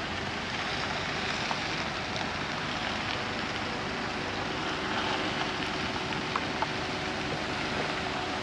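Steady rush of wind and water from a RIB under way, with a faint steady tone from its Mercury F30 four-stroke outboard running. Two short ticks about six seconds in.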